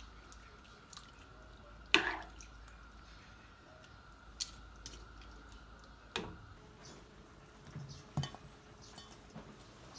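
Sharp clinks and knocks of kitchen work, a few seconds apart, with the loudest about two seconds in ringing briefly, over a faint steady hum.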